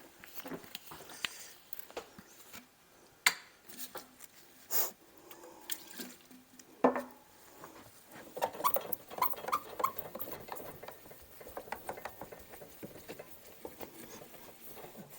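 Light clicks and knocks of hand work on a metal tool cart, with a short burst from an aerosol can of adhesive remover a little before the middle. In the second half comes a run of short high squeaks.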